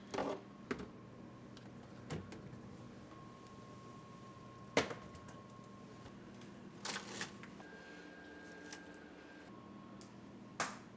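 Items being handled in an open refrigerator: a sauce bottle lifted from the door shelf, and a handful of short knocks and clinks of containers being moved, the sharpest about five seconds in. A faint steady hum lies beneath.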